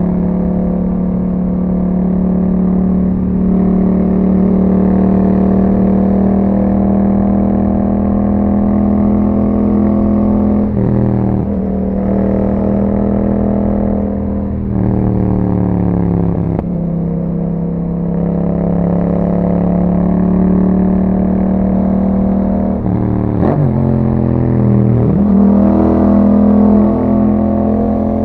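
2021 Yamaha MT-07's 689 cc parallel-twin engine through an Akrapovic exhaust, running under way at a mostly steady engine speed. Several times the pitch drops sharply and climbs back, as with gear changes.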